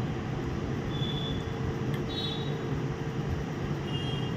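Steady room background noise: a low rumble with a constant hum, and a few faint, short high-pitched chirps about one, two and four seconds in.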